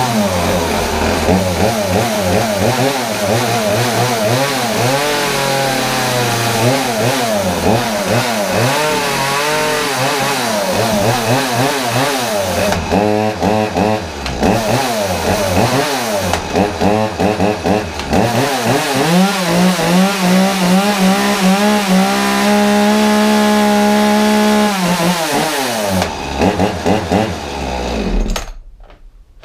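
Ryobi RCS3535A two-stroke chainsaw running, its throttle blipped over and over so the revs rise and fall. It is held at high revs for several seconds, then drops back and stops about a second before the end. A neglected saw just brought back to life, running okay for what it is but wanting a service.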